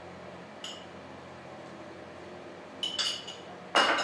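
Metal spoon clinking against a glass jar while paste is scooped out: one light clink about half a second in, a few more around three seconds in, and the loudest clink just before the end.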